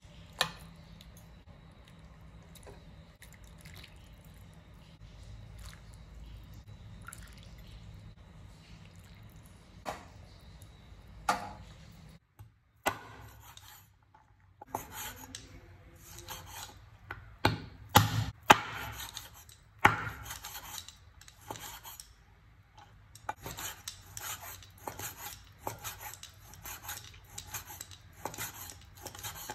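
Vegetables being lifted out of a bowl of water, with faint drips and occasional small knocks. Then, after a sudden cut, a steel cleaver chopping raw meat on a wooden cutting board: loud, uneven knocks at first, turning to fast, even chopping in the last few seconds.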